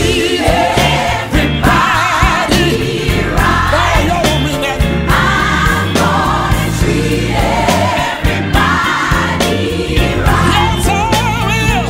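Gospel music: voices singing phrases over an instrumental backing with a steady bass line.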